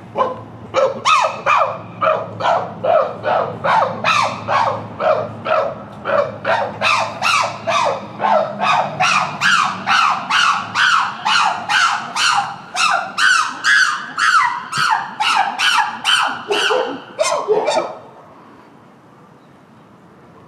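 Chimpanzees giving a long rhythmic series of short hooting calls, about two a second, which stop suddenly about eighteen seconds in.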